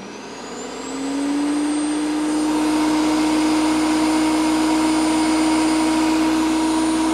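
Powersmart PS10 electric chipper-shredder switched on and spinning up, its motor whine rising in pitch over about the first second, then running steadily at full speed.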